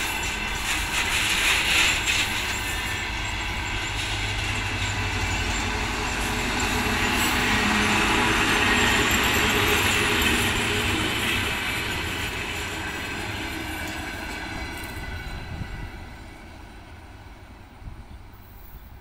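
A train of railway track-maintenance machines rolling past on the rails. It is loudest about halfway through as the last machines go by, then fades as the train moves away.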